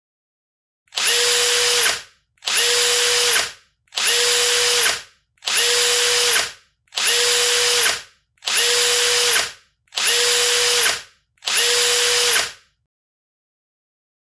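A harsh, noisy sound effect repeated eight times: identical bursts about a second long, evenly spaced, each with a faint steady tone running through it.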